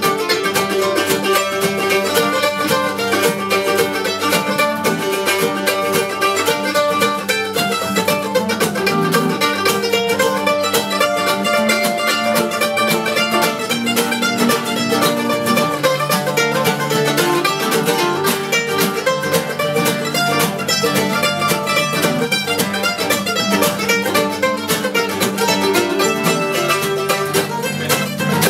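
Bluegrass instrumental on mandolin and acoustic guitars, the mandolin picking a quick melody over strummed guitar rhythm.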